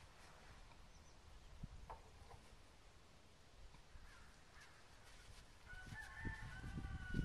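A rooster crowing once, faintly, near the end as a single held call. A low, irregular rumble runs underneath and grows louder in the last second or so.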